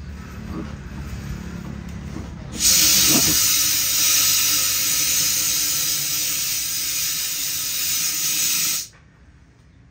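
Compressed air from a shop compressor's hose hissing loudly into a freshly mounted tyre on an alloy rim. It starts abruptly about two and a half seconds in, after a couple of knocks from handling the wheel, holds steady for about six seconds, then cuts off sharply.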